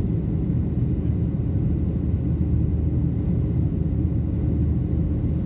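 Jet airliner cabin noise during the climb after takeoff: a steady low rumble of the engines and rushing air heard from inside the cabin, with a faint steady hum above it.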